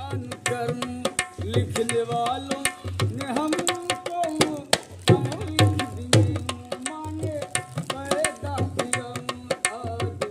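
Dholak, a rope-tensioned two-headed barrel drum, played with the hands in a fast, busy rhythm of strokes, with a melody alongside.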